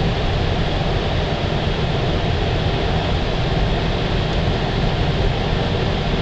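Ford Expedition on 33-inch tyres driving through deep snow, heard from inside the cabin: a steady rumble of engine and tyres ploughing through the snow.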